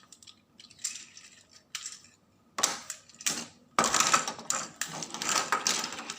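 Hard plastic parts of a Tobot transforming robot toy clicking and clattering as it is twisted and folded through its transformation, in irregular bursts that are busiest in the second half.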